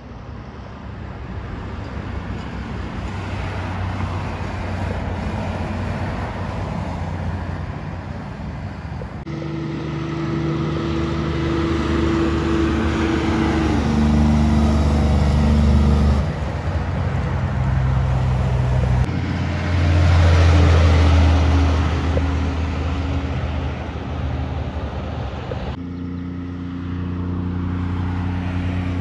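Heavy semi-trailer trucks driving past one after another on a highway, diesel engines droning over tyre noise. The sound changes abruptly several times as one truck follows another.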